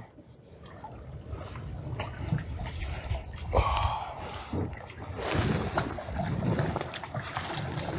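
Water splashing and sloshing beside a kayak as a small redfish is reeled up and landed, with wind rumbling on the microphone. The splashes come in irregular bursts, loudest about three and a half and five seconds in.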